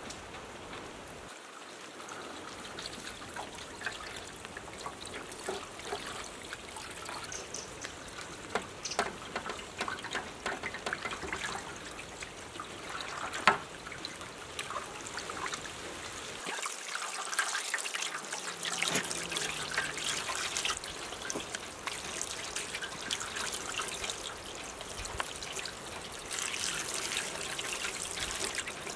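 Water trickling and splashing as fish are washed and gutted by hand in a metal tray, with scattered small wet clicks and a sharper knock about halfway through.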